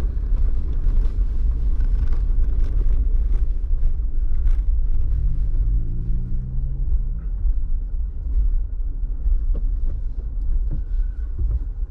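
Jeep driving at low speed, heard from inside the cabin: a steady low engine and road rumble. The engine note rises and falls briefly about halfway through.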